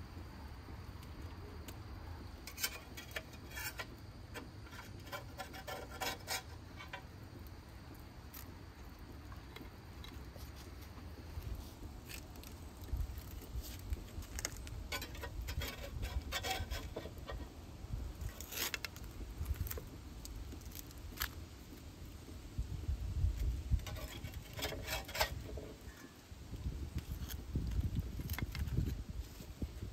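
Metal fork and spatula clinking and scraping against a cast-iron skillet, a grill tray and a ceramic platter as roasted potato slices and whole roasted fish are lifted onto the platter: scattered light clinks over a low rumble.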